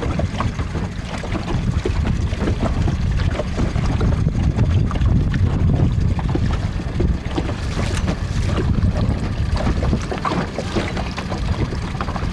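Wind buffeting the camera microphone: a loud, uneven low rumble with irregular gusty crackle.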